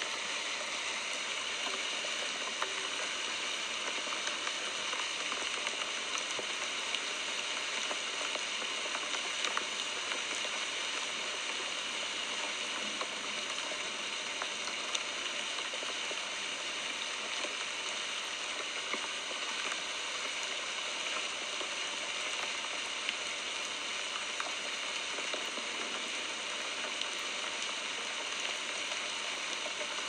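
Steady rain falling: an even hiss with scattered faint drop ticks.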